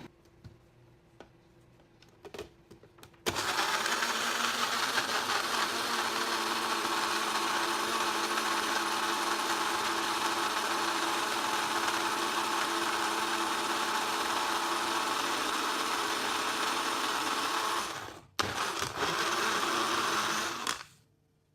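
Electric blender motor running steadily for about fifteen seconds, stopping for a moment, then running again for about two seconds before cutting off. A few small clicks come before it starts.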